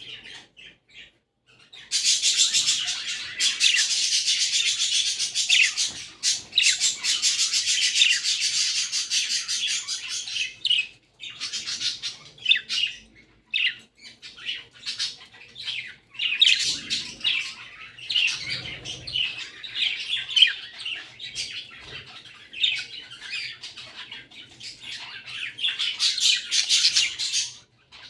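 Budgerigars chattering and warbling, a dense run of quick high notes that starts about two seconds in and goes on with short breaks.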